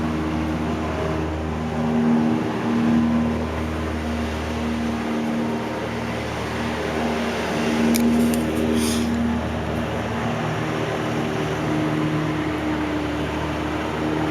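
1400 mm GEC Royal Bianca ceiling fan running at speed 4 of 5: a steady motor hum under a rush of air from the blades. A few brief ticks about eight seconds in.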